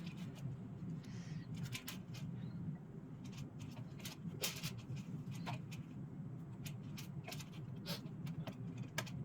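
Steel MIG welding wire clicking and ticking against the spool as it is wound by hand: many sharp, irregular clicks, over a steady low hum.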